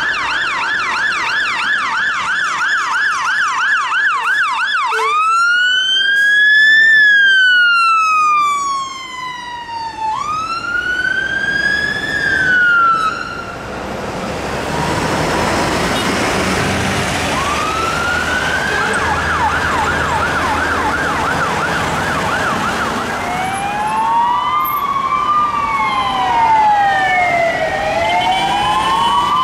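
A Scania fire engine's electronic siren goes from a rapid yelp into a slow rising-and-falling wail. There is a loud rush of engine and road noise as the truck passes, then the siren comes back fainter, wail turning back to yelp. About three-quarters of the way through, a different siren with even, regular up-and-down sweeps takes over: a Belgian police car responding through traffic.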